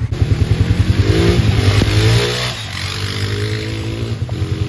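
ATV engines running over a steady hiss, one revving up and down in the first half. About two and a half seconds in, the sound changes suddenly to a steadier engine note.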